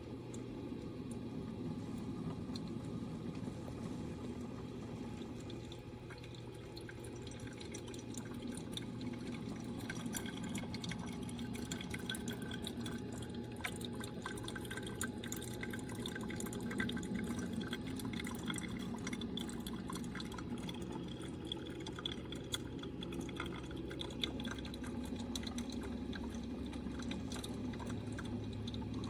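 Simply Good Coffee 8-cup drip coffee maker brewing: hot water trickling and dripping through the brew basket, with many small drips and crackles over a steady low hum. The water comes out mainly as a single jet from one hole of the shower head rather than spreading as advertised.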